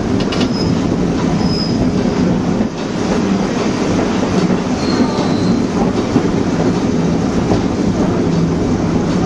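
Steel wheels of a train car rolling along the rails with a steady rumble and clatter. Faint high wheel squeals come twice, once near the start and again about halfway through.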